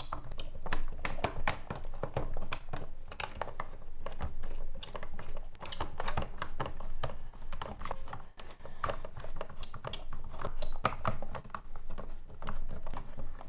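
Irregular light clicks and taps of plastic parts being handled and fitted together, as a toy transformation belt is put back together.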